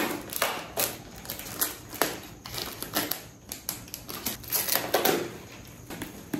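Packing tape and cardboard on a taped parcel being scratched and cut open with a small pointed tool: a quick, irregular run of short scraping strokes.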